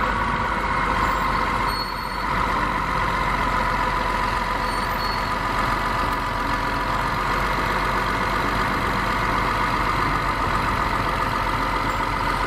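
Caterpillar D6R bulldozer's diesel engine running steadily, with a steady high-pitched whine in the sound.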